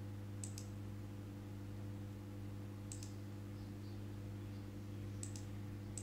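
Computer mouse clicking four times, a few seconds apart, over a steady low electrical hum.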